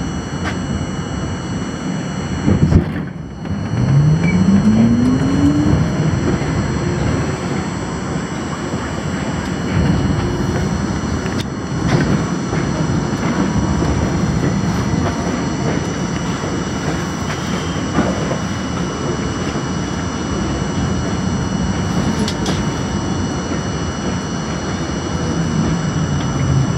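R42 subway car's traction motors whining up in pitch as the train pulls away, then the steady rumble and clatter of its wheels along the elevated steel structure, with a few sharp knocks over rail joints. Heard from the front window of the lead car, slowing near the end as it draws into the next station.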